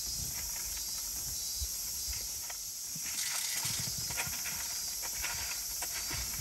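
Steady high-pitched insect drone, with low rumbling and a few faint ticks underneath.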